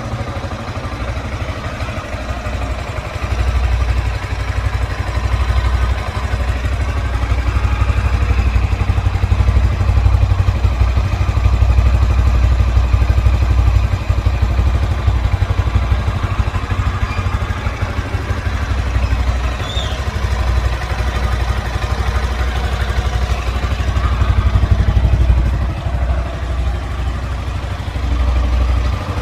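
Yamaha Sniper 155 VVA's stock single-cylinder engine running at a steady idle through its standard exhaust, growing somewhat louder a few seconds in and settling back down near the end.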